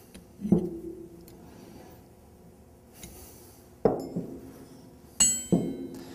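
Steel hand tools clanking on a workbench: a sharp knock about half a second in, then several metal clinks near the end as a wrench is set down among other wrenches, one of them ringing briefly.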